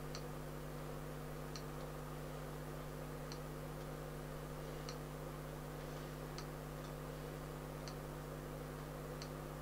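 Computer mouse button clicked repeatedly, a short faint click about every second and a half, over a steady electrical hum.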